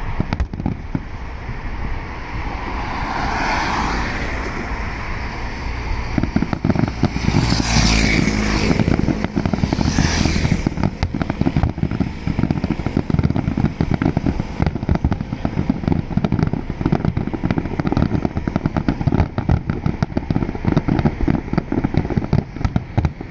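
Aerial fireworks going off: a low rumble at first, then from about six seconds in a dense, unbroken run of rapid bangs and crackles, as in a barrage.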